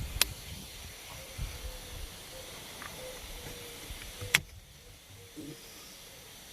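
Sharp plastic clicks of the airbag wiring connectors being worked loose behind a steering wheel. There is a small click just after the start and a loud one about four and a half seconds in, over a steady hiss.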